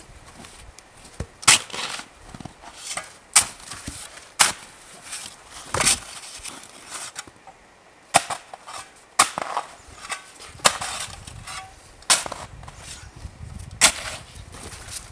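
A shovel digging into packed snow: sharp crunching strikes, one every second or two, as the blade chops in and scoops.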